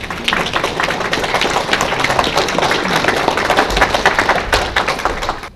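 Audience applauding, a dense patter of many hands clapping that stops abruptly near the end.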